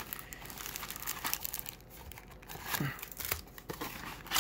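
A cardboard trading-card mini box is torn open, and the foil-wrapped packs inside crinkle and rustle as they are handled, with a few sharper tearing sounds along the way.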